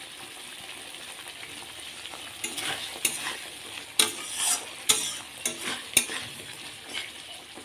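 Paneer cubes being stirred into spinach gravy cooking in a metal pan: a steady sizzle, then from about two and a half seconds in, repeated scrapes and knocks of the stirring spoon against the pan.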